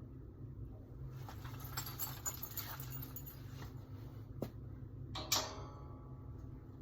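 Metal rack parts rattling and clinking as they are handled, then a sharp click and a loud metal clang that rings briefly, over a steady low hum.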